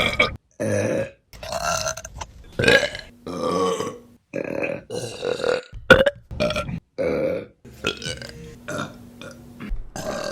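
A rapid succession of women's burps, about a dozen in ten seconds, each one short and cut off abruptly before the next begins.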